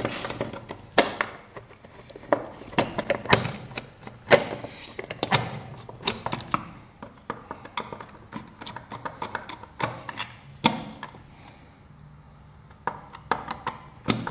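Screwdriver backing out the mounting screws of a three-button push-button control station on a plywood board: irregular clicks, scrapes and knocks of the tool and the station's housing against the wood, with a quieter spell shortly before the end.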